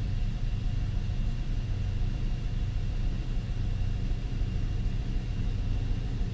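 Steady low hum of running machine-shop machinery, with a faint thin high whine above it.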